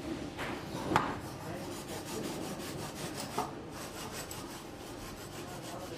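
A hand-held wire cake slicer sawing back and forth through a vanilla sponge cake, a steady rasping rub. A sharp knock about a second in is the loudest sound.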